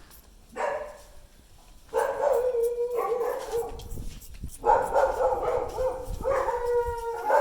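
A dog giving long, drawn-out, steady-pitched cries: a short one near the start, then a call of about a second from two seconds in, and a longer one of about two and a half seconds from nearly five seconds in.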